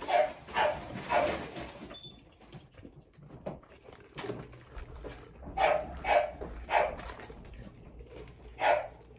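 A dog barking: a quick run of three barks, another run of three a few seconds later, then a single bark near the end.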